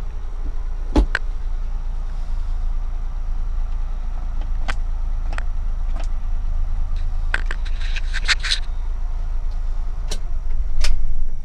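Cab noise of a 1990 Suzuki 4x4 mini truck running: a steady low engine drone with scattered sharp clicks and rattles, swelling briefly near the end.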